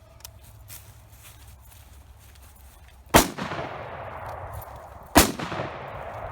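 Two gunshots about two seconds apart, each sharp crack followed by a long echo rolling away.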